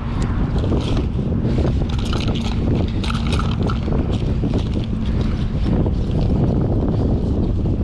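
Wind buffeting the microphone, a steady loud rumble, with the scratchy rustle and clicks of hands rummaging through a fabric duffel bag.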